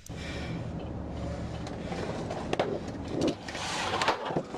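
Car in motion: steady engine and road noise, with two sharp knocks about halfway and a louder rush of noise near the end.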